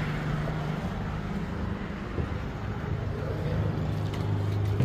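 A steady low mechanical hum, like a motor or engine running, under a faint rushing noise.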